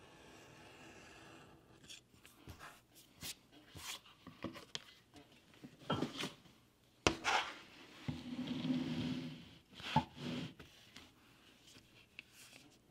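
A small leather hand tool scraping along a piece of shell cordovan on a cutting mat, with scattered light clicks and taps as the tool and leather are handled. A longer scratching stretch comes about eight seconds in.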